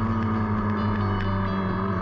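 Dirt bike engine running at steady revs, heard close up from the riding bike.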